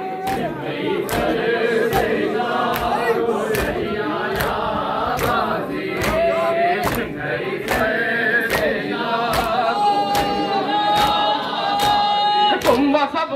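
A crowd of mourners chanting a nauha together, with rhythmic matam chest-beating slaps about twice a second; a long note is held near the end.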